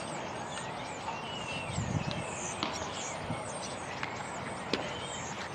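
Open-air ballpark ambience with birds chirping and a few sharp knocks from baseball play: balls being hit and popping into gloves during a pitching session.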